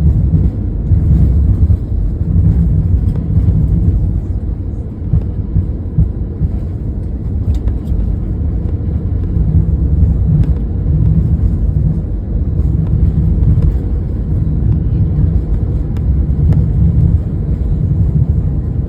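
Steady low rumble inside an airliner's cabin as it rolls on the ground after landing, with a few faint clicks.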